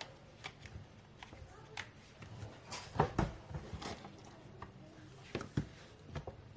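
Handling noise from a disc-bound notebook: scattered light clicks and taps of paper and plastic binding discs under the fingers, the sharpest cluster about three seconds in.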